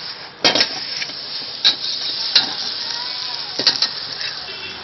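Metal ladle striking and scraping a wok while rice is stir-fried: a few sharp clangs spaced about a second apart over a steady frying sizzle.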